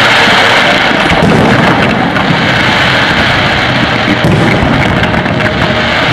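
Loud, continuous crackling and rumbling of a fireworks barrage, many shells and low-level crackle effects going off together so that the pops blur into one rain-like roar.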